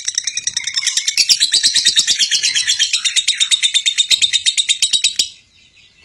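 Lovebird singing a long, unbroken, rapid chattering trill of high notes, the 'konslet' song prized in Indonesian songbird contests. It stops abruptly a little after five seconds.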